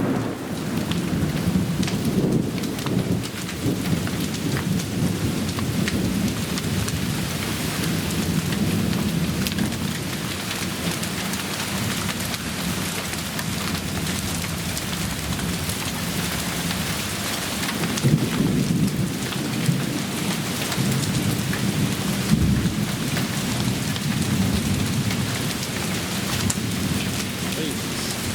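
Heavy storm downpour drumming steadily with a low rumble underneath, from a severe thunderstorm that has been dropping large hail. Scattered sharp taps run through it, with a couple of louder hits late on.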